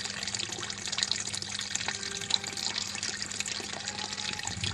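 Water running into a top-load washing machine's tub during filling, splashing and trickling steadily, with a faint steady hum beneath.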